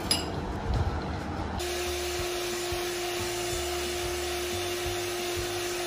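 Electric hand mixer switching on about a second and a half in and running steadily with a constant whine as it beats cake batter in a glass bowl. Before it, a few light knocks as flour is spooned into the bowl.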